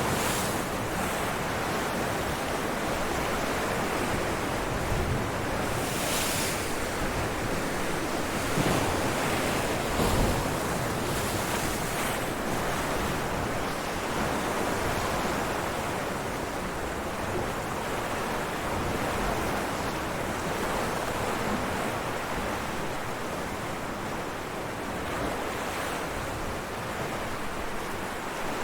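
Ocean waves breaking on rocks: a continuous wash of surf with brief louder surges a few times in the first half, as waves break.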